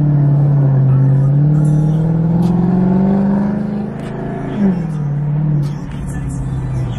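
Car engine accelerating, its pitch rising steadily for about four seconds, then dropping sharply as it shifts up a gear. It holds briefly and then eases off.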